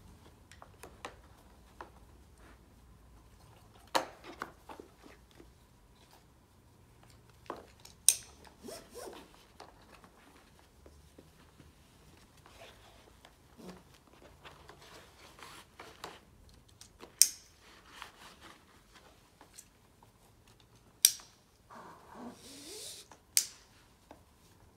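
Stretcher strap buckles snapping shut: about five sharp, loud clicks spread out, with smaller ticks and the rustle and scrape of webbing straps being handled and pulled through between them. Near the end a longer rasp as a strap is drawn tight.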